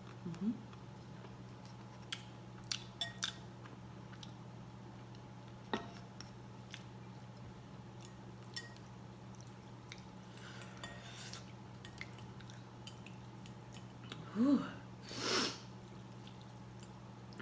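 Eating sounds: a few light clicks of utensils against a dish and soft mouth noises, over a steady low hum. Near the end comes a 'whew' and a long breathy blow of air after spicy food.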